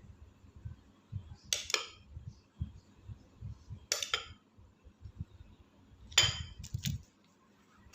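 Metal utensils clinking against dishes: three sharp ringing clinks, each quickly followed by a second, over soft low knocks of handling.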